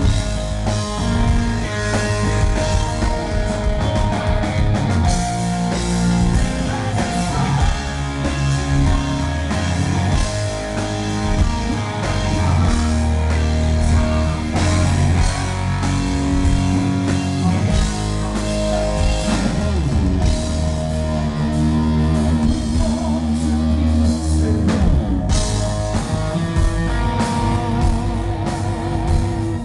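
Hard rock band playing loudly live: electric guitar over bass and drums.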